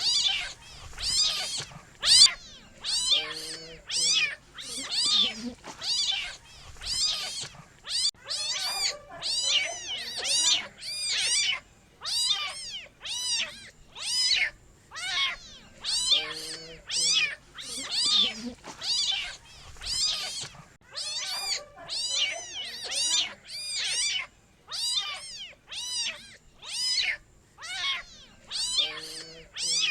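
Kitten meowing over and over, high-pitched calls about one a second, some coming in quick runs of two or three, each bending up and down in pitch.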